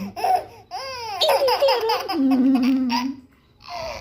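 Baby laughing: a short giggle at the start, then a long run of high-pitched laughs, from about a second in to about three seconds, with squealing glides that fall in pitch.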